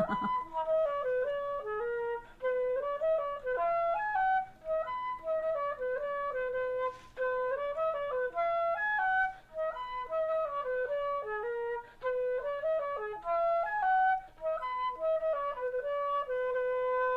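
Background music: a single melody line of short notes stepping up and down.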